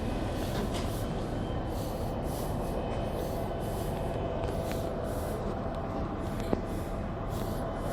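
Steady low mechanical rumble with a faint constant hum, and a single sharp click about six and a half seconds in.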